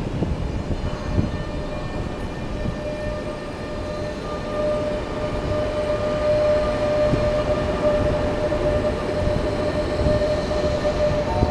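Renfe Rodalies electric multiple unit moving off and passing close by: a steady electric whine that slowly rises in pitch as it gathers speed, over the rumble and occasional clicks of its wheels on the rails. Near the end a second, higher whine comes in and climbs.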